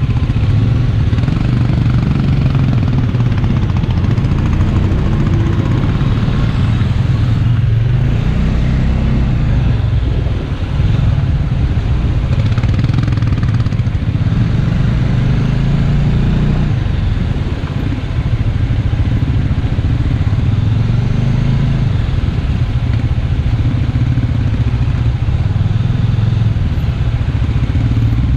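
Motorcycle engine heard from the rider's seat, running at low revs while creeping between stopped cars. Its pitch rises and falls with the throttle, and it eases off briefly twice.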